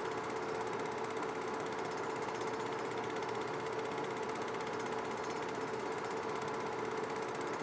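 Movie projector running: a steady, rapid mechanical clatter with a constant motor hum.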